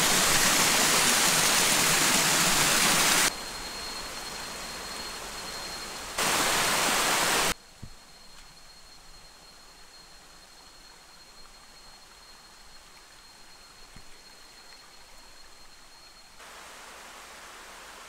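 Rushing water of a waterfall, a steady hiss that drops abruptly about three seconds in, comes back loud briefly around six seconds, then falls to a faint hush with a thin steady high tone for most of the rest.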